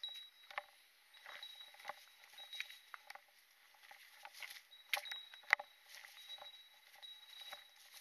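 Footsteps crunching on a dirt forest trail, irregular steps about a second apart, with the loudest near the middle. A faint, thin, high-pitched tone comes and goes behind them.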